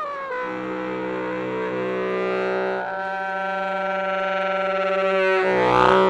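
Baritone saxophone playing long held notes in a solo improvisation: a note sliding down at the start, a higher note entering about three seconds in, and a louder, rising swell near the end, with a steady low tone sounding beneath.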